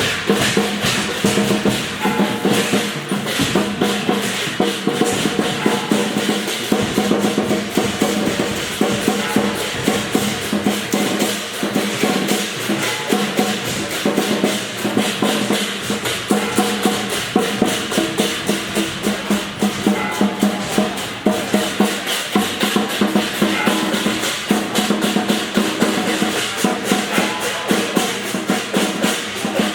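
Street procession music: drums and other percussion beating rapidly and continuously, with steady held pitched notes underneath.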